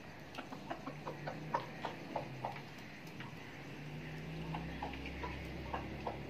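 Hens pecking food off a metal tray and wet concrete: quick sharp taps, about three a second, thinning out after about two and a half seconds, over a low steady hum.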